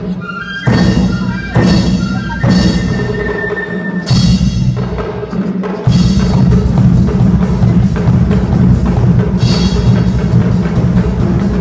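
School cadet band of brass and percussion playing: a run of loud accented drum-and-band hits about a second apart, then from about six seconds in the full band plays on continuously.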